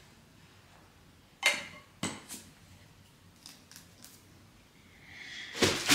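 Metal lid of a Bath & Body Works three-wick glass candle jar being put back on: a sharp click about one and a half seconds in, then a second click and a few lighter taps as it is handled. Near the end, a louder burst of handling noise.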